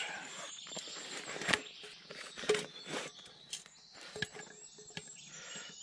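Rustling of a bag as a stainless-steel billycan is worked out of it, followed by a scatter of light knocks and clicks, a few with a brief ring, as the billycan is handled and set down.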